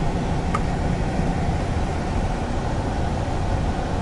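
Steady engine and road noise heard from inside the cabin of a moving car.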